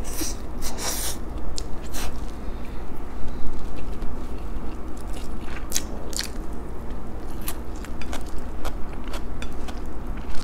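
A person chewing a mouthful of food close to the microphone, with irregular sharp crunches and mouth clicks, over a steady low hum.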